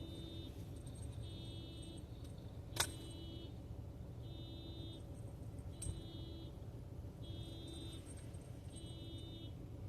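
Car alarm sounding faintly in a repeating pattern, one blast just under a second long about every second and a half. A sharp click cuts in about three seconds in.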